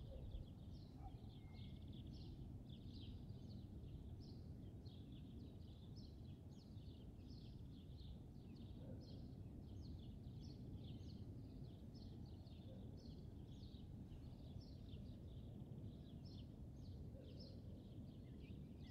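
Faint, continuous chirping of small birds, short high chirps coming two or three times a second, over a low steady outdoor rumble.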